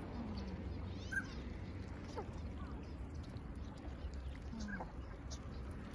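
A few short, soft, falling calls from ducks on the water, about the start, a second in and near the end, over a steady low rumble.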